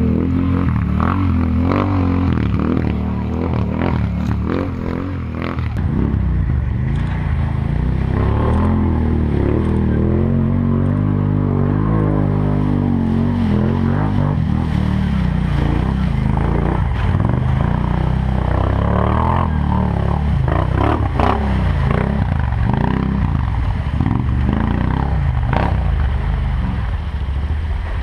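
4x4 ATV engine running under way, its pitch climbing and falling back as the throttle is worked, with frequent knocks and rattles from the machine.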